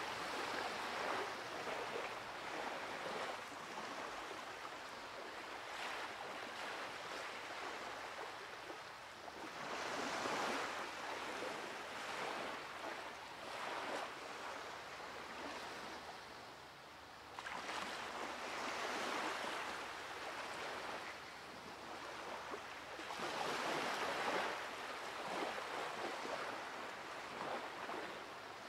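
Surf breaking on a sandy beach: a steady wash of water, swelling louder every several seconds as each wave comes in.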